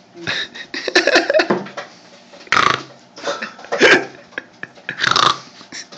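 A person making loud burping noises in several bursts, about four in all, some falling in pitch.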